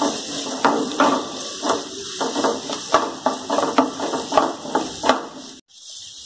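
Chopped onions frying in oil in a non-stick kadai, a wooden spatula scraping and tossing them in quick repeated strokes over a steady sizzle. The stirring cuts off suddenly about five and a half seconds in, leaving only a faint sizzle.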